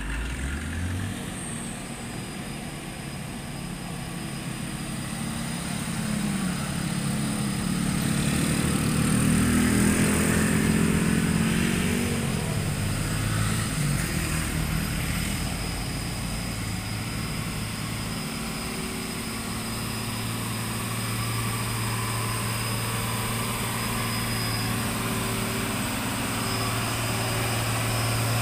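Diesel engine of a fully loaded Hino 500 wing-box truck labouring up a steep climb. The engine note rises and grows louder about a third of the way in, then settles into a steady low drone.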